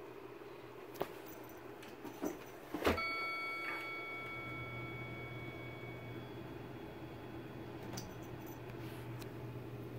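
A few light knocks, then a sharper knock about three seconds in, followed by a clear, bell-like metallic ring that fades away over about three seconds.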